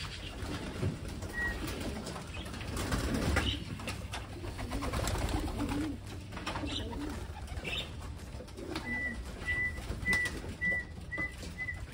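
Racing pigeons cooing in their loft, with scattered clicks and rustling. Near the end comes a run of short high beeps, about two a second.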